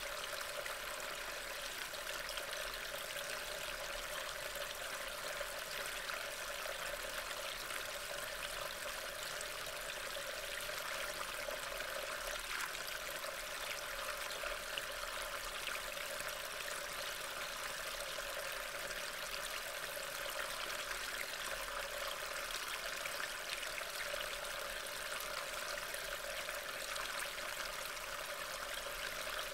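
Steady rain falling, an even hiss without distinct separate drops.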